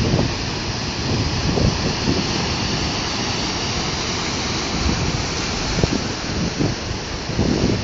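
Strong wind buffeting the camera microphone in gusts, over a steady rushing hiss of wind and surf.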